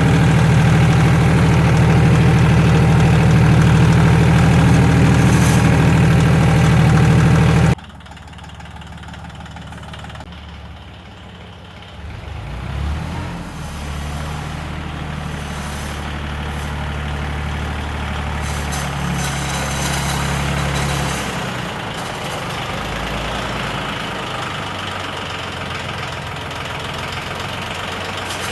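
Yanmar diesel tractor engine running, loud and close at first. About a quarter of the way in the sound drops suddenly to a quieter, more distant engine, which rises in pitch briefly a few seconds later and then runs steadily.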